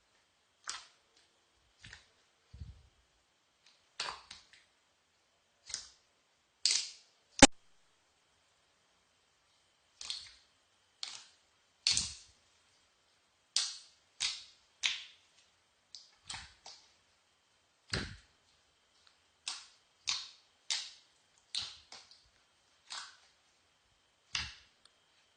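Slime being squeezed and poked by hand, giving short popping clicks at irregular intervals, roughly one a second, with one sharper, louder snap about seven seconds in.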